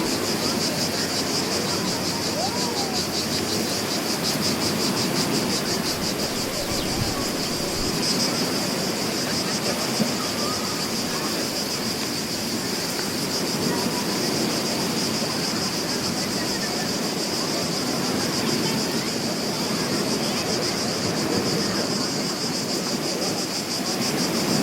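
Beach ambience: sea waves washing on the shore in a steady wash under a constant high, rapidly pulsing drone of cicadas.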